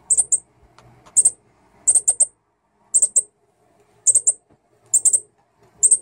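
Fledgling northern cardinals giving sharp, high chip calls in quick groups of two or three, about once a second.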